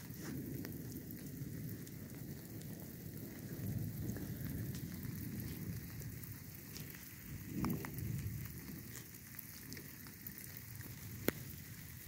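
Light rain falling, with scattered drops tapping and one sharper tap near the end. Under it is a low rumble that swells twice, about four and eight seconds in.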